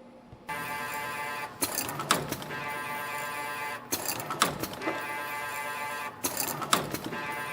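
CNC extension spring machine starting up about half a second in and coiling stainless steel wire: a steady motor whine while each spring coils, broken about every two and a half seconds by a burst of sharp clacks as the spring is cut and its hooks are formed, a rate of about 25 springs a minute.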